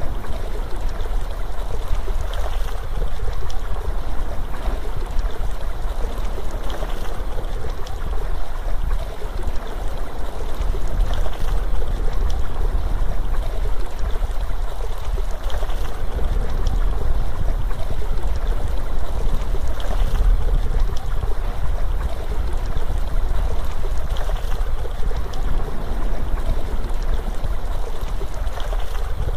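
Steady rushing water of a waterfall: an even wash of noise with a heavy low rumble.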